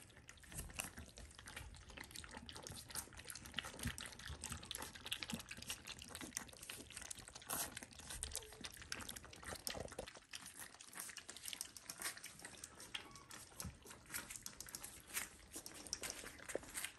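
A litter of Shiba Inu puppies lapping and slurping soaked kibble from a stainless steel feeding dish: a quick, irregular patter of small wet laps and clicks.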